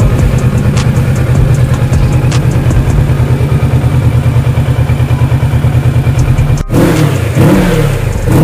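Kawasaki Ninja 650's parallel-twin engine idling with an even, pulsing beat. After a sudden cut near the end, it is revved up and let back down, its pitch rising and falling.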